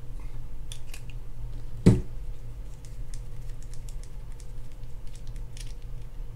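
Light clicks and taps of small metal and plastic spinning-reel parts being handled as the rotor nut is unscrewed by hand, with one louder knock about two seconds in. A steady low hum runs underneath.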